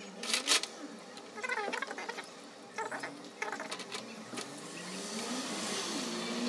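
Small metal parts of a turbo wastegate actuator clicking and tapping as they are handled and fitted, in a few short sharp bursts. Under them runs a faint whine that rises and falls in pitch.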